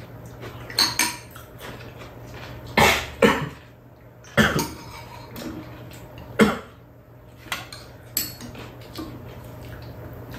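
Metal chopsticks and spoons clinking and tapping against bowls while two people eat, in scattered single clinks every second or so.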